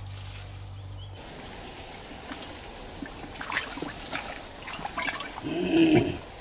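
A steady low hum that cuts off about a second in, then water splashing and trickling, with the loudest splash near the end.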